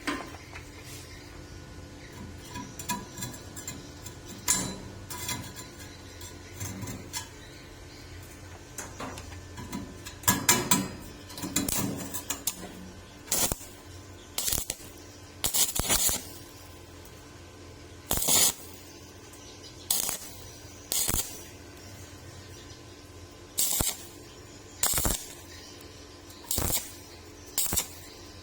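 Stick-welding arc on thin steel pipe, struck and broken in short stitches: about ten brief crackling bursts, roughly one every second or so, in the second half. Before them come scattered light metal clinks.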